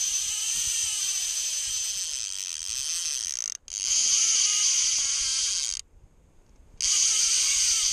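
Click-and-pawl fly reel on a spey rod buzzing fast as a hooked steelhead runs and strips line off it. The run breaks off for a moment about three and a half seconds in, stops for about a second near six seconds, then starts again.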